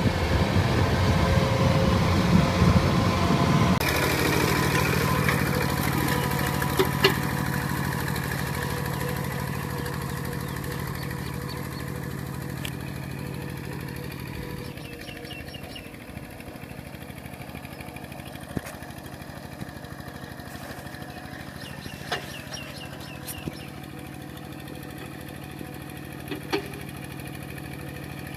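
A crawler combine harvester's engine runs for the first few seconds. Then a two-wheel walking tractor's engine runs steadily while it is driven through a muddy paddy, growing fainter after about fifteen seconds, with a few short sharp knocks.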